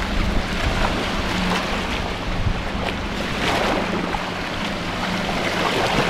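Small Baltic Sea waves washing onto a sand spit, with swells about halfway through and again near the end. Wind buffets the microphone throughout.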